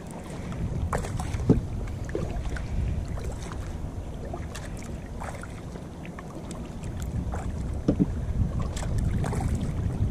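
An Oru folding kayak moving on calm water: a steady low rumble of wind on the microphone with water against the plastic hull and scattered small knocks and ticks, the sharpest about one and a half seconds in and about eight seconds in.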